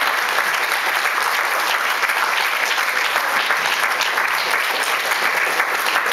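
An audience applauding steadily after a talk ends: many hands clapping at once.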